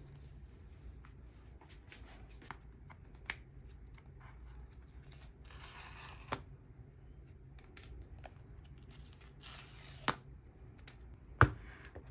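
Paper pull-tab seal strips being torn off an iPhone box, two tears of under a second each. Light taps and handling knocks from the box come between them, with a sharper knock near the end.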